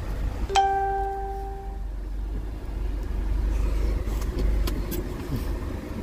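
A vehicle engine idles with a steady low rumble, heard from inside the van's cab. About half a second in, a single pitched tone starts suddenly and fades away after a little over a second.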